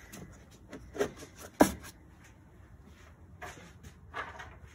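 A few light knocks and clicks of a hard plastic air box housing and intake parts being handled and set in place in an engine bay, the loudest a sharp knock about a second and a half in.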